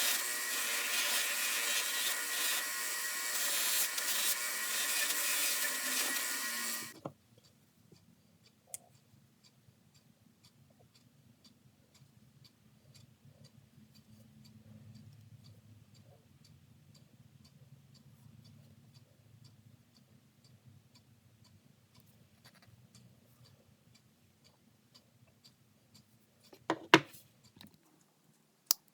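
Buffing wheel spinning with steel pliers held against it, a loud steady whir that stops abruptly about seven seconds in. After that only a faint low hum and small scattered ticks, with a sharp clatter near the end.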